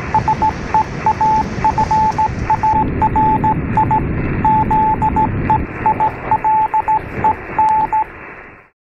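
Morse code: a single beeping tone keyed in short and long pulses, dots and dashes, over a loud hiss of radio static with a low rumble. The beeping stops about 8 seconds in and the static fades out and cuts off shortly after.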